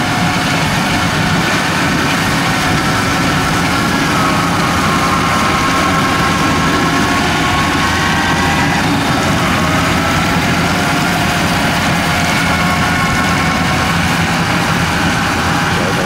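Yanmar AW82V rice combine harvester running steadily, its diesel engine droning under a higher whine that slowly rises and falls in pitch.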